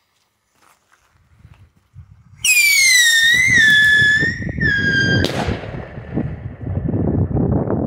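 Firework whistle: a loud shrill whistle that slides downward and wavers for about three seconds, then ends in a sharp bang. A dense crackling rumble from the firework runs under it and on for a few seconds after.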